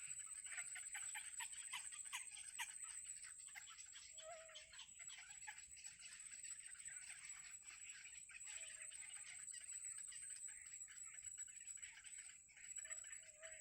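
Nestling birds cheeping in a rapid, continuous chorus of short high notes, with a steady high-pitched whine underneath and a few brief lower calls.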